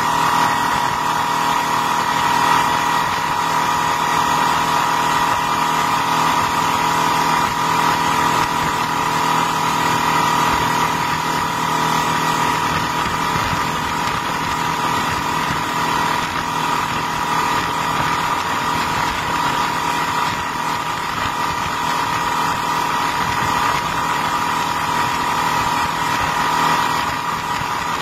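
Honda BF250D V6 four-stroke outboard running steadily at cruising speed, a constant engine whine over the rush of water and wind from the boat's wake.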